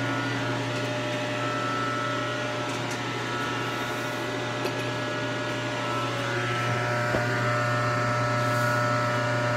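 Fadal VMC 15 machining centre and its rotary phase converter running powered up: a steady electrical hum with a low drone and several steady higher tones. A soft knock about seven seconds in.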